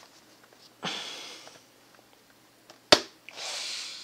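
Handling of a laptop's plastic bottom case: a sharp click about three seconds in, between two short hissing noises.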